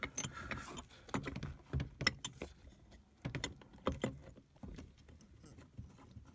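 Irregular small clicks and taps of metal filter parts handled and knocking together as a new primary diesel fuel filter canister is fitted to its filter head.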